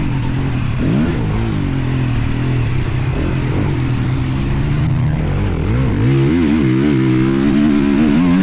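Two-stroke motocross bike engine revving up and down as the rider works the throttle, with the pitch rising and falling several times over a steady engine drone.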